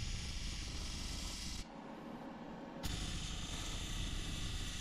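MIG welding arc running steadily on a laser-cut steel bracket. It stops for about a second near the middle, then restarts with a sharp click.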